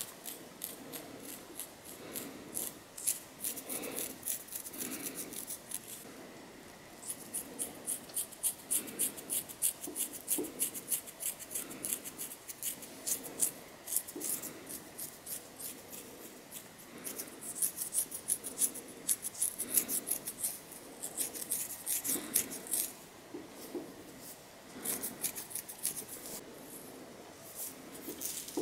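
Long fingernails scratching a dandruff-flaked scalp through the hair, in runs of quick scratching strokes with brief pauses between runs.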